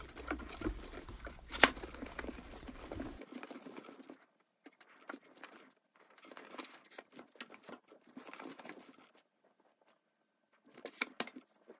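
Bamboo sushi rolling mat rustling and clicking as hands roll and press a sushi roll on a wooden board. The sound comes in irregular bursts, with a sharp click about a second and a half in and a few clicks near the end.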